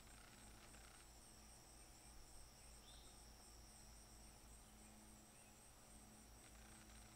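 Near silence with a faint, steady high chirring of insects.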